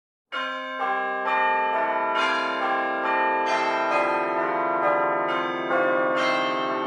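Bell music: a slow run of bell tones, struck a little over twice a second, each ringing on beneath the next. It starts suddenly a moment after a brief silence.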